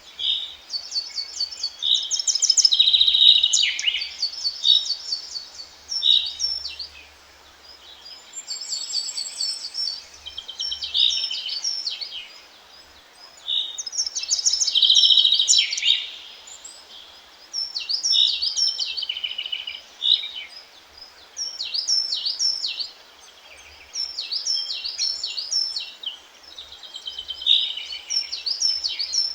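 Songbirds singing short, quick phrases of chirps and trills, one phrase every few seconds, over a faint steady hiss.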